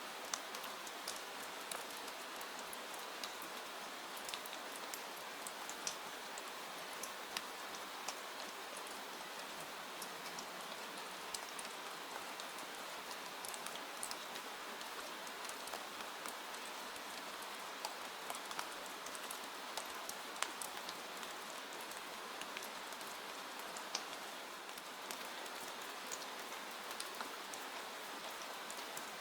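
Steady rain falling on surfaces, an even hiss with scattered sharp ticks and drips.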